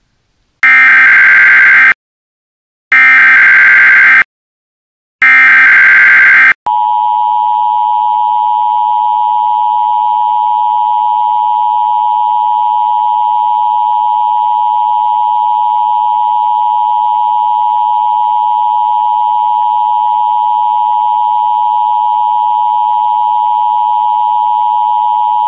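Emergency Alert System tones: three loud bursts of SAME header data, each about a second and a half long with short silences between, then the steady two-tone EAS attention signal, which starts about seven seconds in and holds without change.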